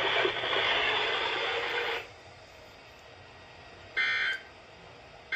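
A steady hiss that cuts off about two seconds in. Then a short, buzzy two-tone data burst about four seconds in, and the start of another at the very end: NOAA Weather Radio's SAME end-of-message code, sent in repeated bursts to close the broadcast.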